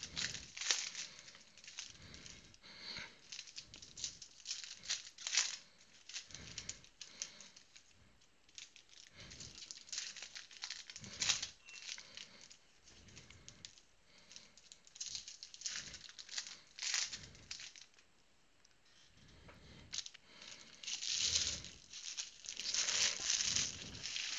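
Trading-card pack wrappers being torn open and crinkled by hand: irregular bursts of crackling and rustling.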